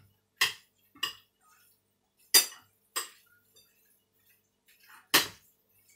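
Eating utensils clinking against a white ceramic bowl as dry noodles are mixed with their sauce: five sharp clinks, two pairs about half a second apart, then one more near the end.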